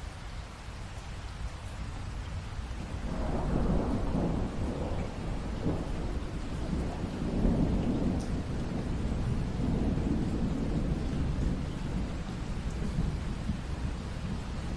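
Steady rain with a long roll of thunder that swells in about three seconds in, rumbles on with several surges and slowly eases toward the end.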